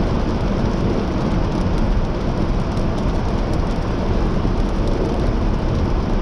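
Steady road noise of a car in motion: a constant low rumble with hiss above it, no clear engine note.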